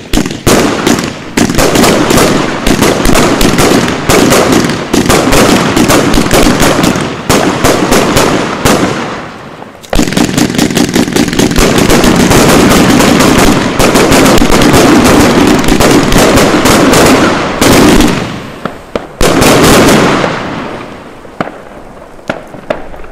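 A Funke Corolla Blue 100-shot 1.2-inch firework cake firing rapid shots whose launches and bursts run together into near-continuous bangs. There is a brief lull near ten seconds, then a long dense run, then a last fast volley near twenty seconds: the final section going off almost at once. After that it dies away.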